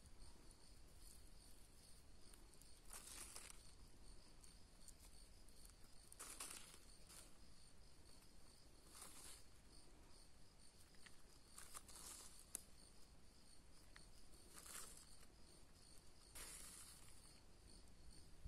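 Faint, steady chirping of a cricket, an even train of high pulses. About six brief, soft rustling hisses come over it as dry spices are shaken onto chicken pieces in a bowl.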